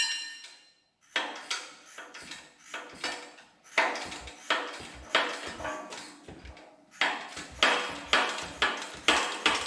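Repeated sharp metallic clinks and knocks, two or three a second with short ringing tails, starting about a second in: steel tools and gear parts knocking together as a gear is worked off a transmission shaft.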